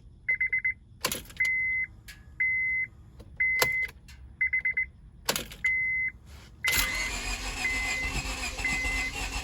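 The 2002 Honda Civic's warning chime beeps about once a second, alternating a rapid pulsed beep with a steady tone, with a few sharp clicks in between. About seven seconds in, the engine turns over while the chime keeps beeping: a hard start after the car sat a month and a half and lost fuel pressure.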